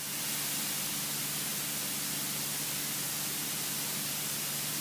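Steady hiss of a light aircraft's cockpit intercom audio, with a faint, even low hum of the engine underneath. The hiss swells up in the first half second, then holds level.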